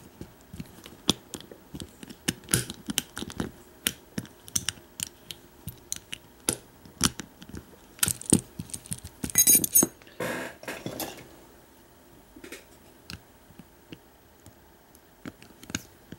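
Small metal clicks, ticks and scrapes of a tool working at the retaining clip on the back of a Defiant deadbolt cylinder's plug to get it off. A brief metallic jingle comes about nine seconds in, with a scrape right after, and only scattered clicks follow.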